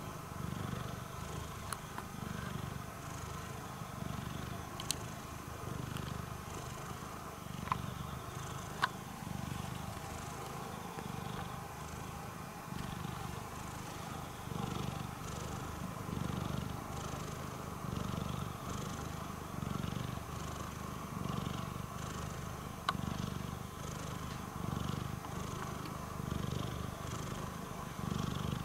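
Long-haired calico cat purring steadily, the purr swelling and fading with each breath about every second and a half. A few small sharp clicks stand out over it.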